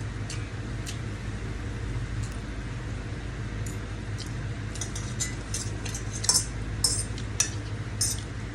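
Cutlery clicking and clinking against a plate while eating instant fried noodles. The clicks are scattered at first and come thick and fast in the second half, over a steady low hum.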